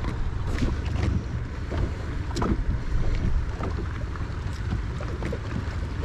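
Wind buffeting the microphone and water noise aboard a small fishing boat, with a few light knocks and clicks scattered through.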